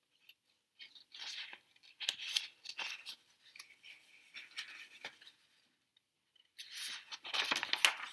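Paper pages of a large picture book being handled and turned, rustling and sliding in short bursts with small crackles, louder near the end as the page is flipped over.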